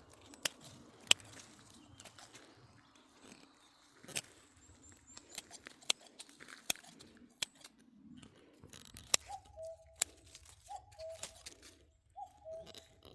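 Scattered sharp clicks or snips. From about nine seconds in, a bird calls three times, each call two short notes falling in pitch.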